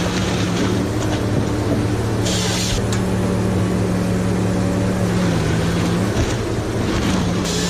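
Heavy vehicle's diesel engine running steadily, its pitch dipping briefly about five seconds in and recovering. A short hiss comes about two seconds in.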